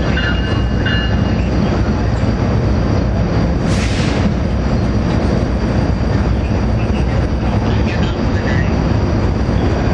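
Commuter train of bilevel passenger coaches rolling past, a steady loud rumble of wheels on rail, with a brief hiss about four seconds in.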